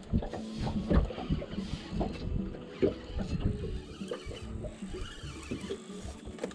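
Irregular knocks and clicks of fishing gear and the boat as a hooked fish is being played in.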